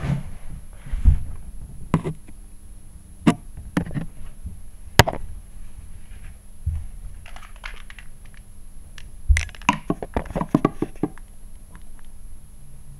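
Handling noise: scattered sharp clicks and knocks, with a quick run of them about ten seconds in, over a low steady hum.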